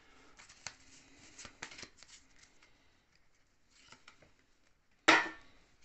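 Pokémon trading cards handled and slid through by hand: a run of light clicks and rustles over the first two seconds, then softer handling, and one sharp, loud snap about five seconds in.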